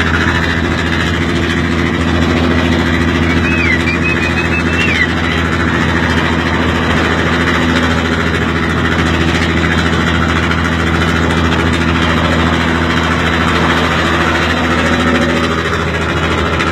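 FNM engine running steadily under way at road speed, a constant deep rumble that holds the same note throughout.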